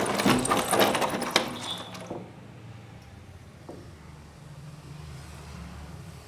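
A wooden door being unlocked and opened: the latch and lock rattle and click for about two seconds, with one sharp click near the end. Then a faint steady low hum of room tone.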